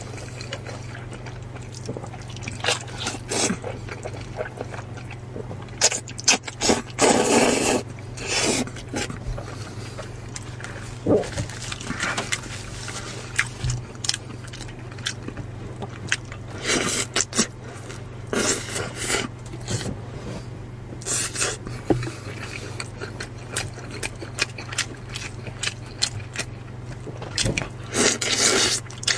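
Close-miked eating sounds: noodles slurped and chewed, then braised chicken leg bitten and chewed, in irregular wet bursts of varying loudness. A steady low hum runs underneath.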